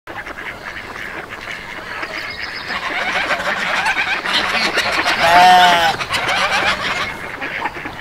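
A flock of farm birds calling over one another, growing louder, then one loud, drawn-out call about five seconds in, lasting under a second.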